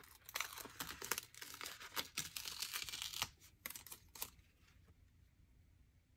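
Paper sticker sheet being handled and a sticker peeled off its backing: crackly rustling and peeling for about four seconds, then it stops.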